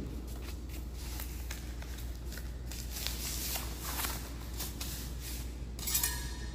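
Scattered soft rustles and scuffs of a coil of foam backer rod being handled on a concrete floor, over a steady low hum, with a brief louder scrape near the end.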